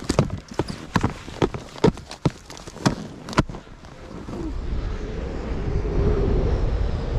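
Skis and ski boots crunching and clacking as they step in snow, a quick irregular run of sharp crunches over the first three and a half seconds. Then a low rush of wind on the microphone builds up towards the end.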